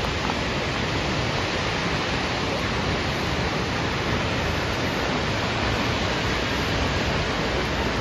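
Steady rushing noise of the Salto São Francisco, a 196 m waterfall plunging into its gorge.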